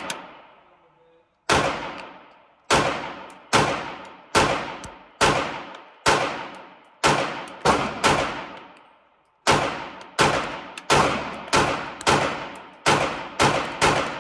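A compensated 9mm pistol firing about seventeen rounds, roughly one every half second to one second. There is a slightly longer pause a little past halfway. Each shot rings on in the hard-walled indoor range.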